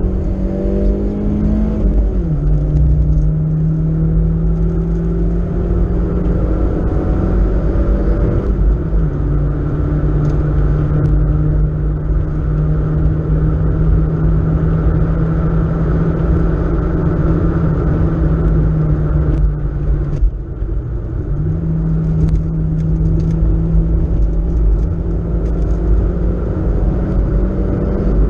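BMW E36 318is four-cylinder engine heard from inside the cabin, running hard at high, fairly steady revs with heavy road and wind rumble. The revs fall about two seconds in, dip briefly near twenty seconds and pick up again, and drop once more near the end at a gear change.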